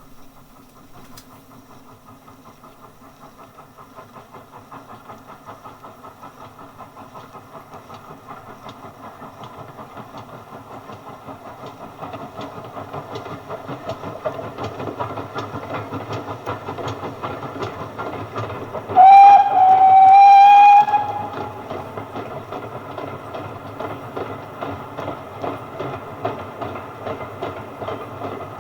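A train approaching, its rhythmic beat growing steadily louder. About two-thirds of the way through, the locomotive's whistle sounds loudly for about two seconds as one slightly rising note.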